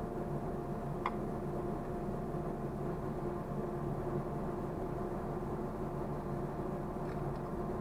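Saw-sharpening machine running with a steady hum made of several held tones. There is one light metallic click about a second in.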